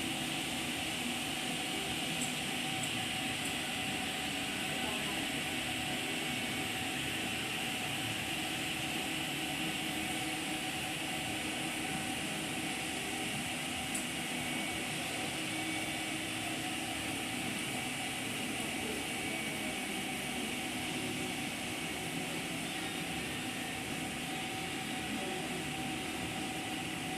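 Steady mechanical hum: a constant hiss with several held tones over it, unchanging apart from a faint click or two.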